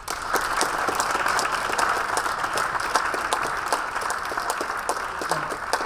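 Audience applauding: many overlapping hand claps that start suddenly and keep up steadily, easing slightly near the end.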